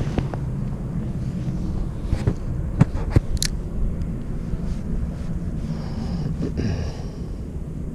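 Steady low rumble of wind buffeting the microphone, with a few sharp clicks about three seconds in.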